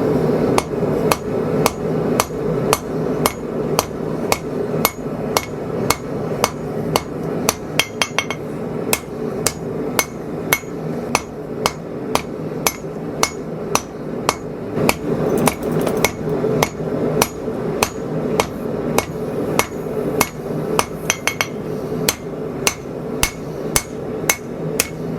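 Hammer blows on a hot 80CrV2 steel blade on the anvil, about two to three strikes a second with a few short pauses, over a steady background noise. The smith is drawing out the ricasso area of the blade to gain length.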